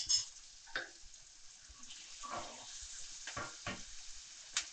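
Sliced onions and ginger-garlic paste frying in oil in a non-stick pan: a faint, steady sizzle, broken by several short scrapes and taps of the spoon stirring them.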